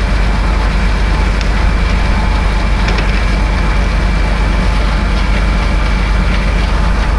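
Heavy farm machinery engine running steadily, with a thin steady whine above the low drone.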